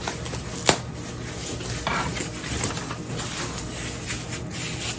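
Foam packing wrap rustling and rubbing as it is pulled off a plastic filament-dryer housing, with one sharp click a little under a second in.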